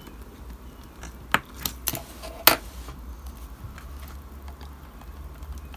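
A craft knife and a thin strip of plasticard roof tiles being cut and handled on a cutting mat: four sharp clicks and taps, starting about a second in, the loudest near the middle, over a faint low hum.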